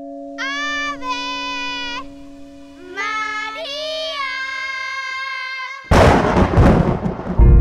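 Film score: high, held melody notes, the second phrase gliding upward, over a sustained drone. About six seconds in, a sudden loud crash breaks in, followed by a deep rumble under the music.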